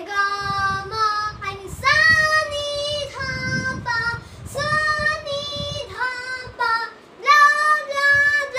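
A child singing the sargam scale syllables (Sa Re Ga Ma Pa) in a high voice: short held notes that step in pitch, sung in four runs with brief breaks between them.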